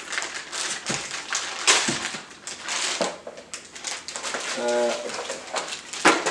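Packaging being torn open and handled: irregular crinkling and rustling with several sharp snaps, the loudest about a second and a half in and near the end.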